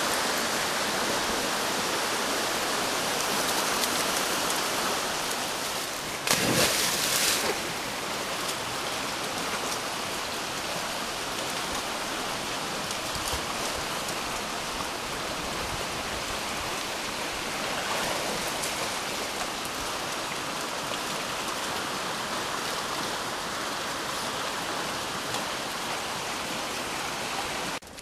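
Steady rushing water, like a stream or weir, with a brief louder surge of noise about six and a half seconds in.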